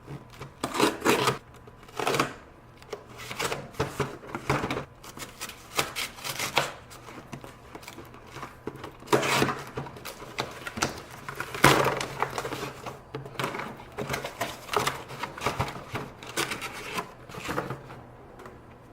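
A shipping package being opened by hand: irregular bursts of tearing, crinkling and rustling packaging.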